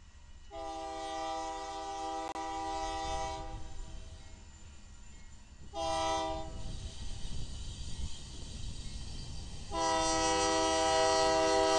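Freight locomotive's multi-note air horn sounding three blasts: a long one, a short one, then another long one starting near the end and carrying on. Under the horn is the low rumble of the approaching train.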